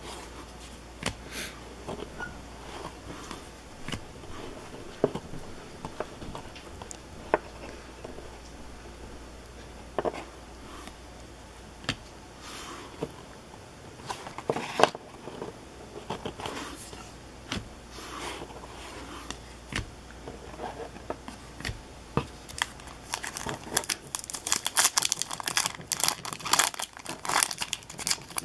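Trading cards slid and flicked one behind another, making scattered soft clicks. In the last few seconds an O-Pee-Chee hockey card pack wrapper is torn open, crinkling and tearing densely.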